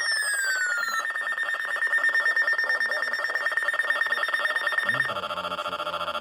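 Weather alert radio alarm tones for an incoming warning. A falling swept tone ends about a second in and gives way to a steady, rapidly pulsing beep, which changes about five seconds in to a different pulsing alarm of several tones.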